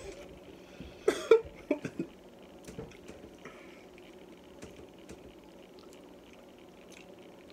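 A person coughing in a few short bursts about a second in, then a quiet room with faint scattered clicks.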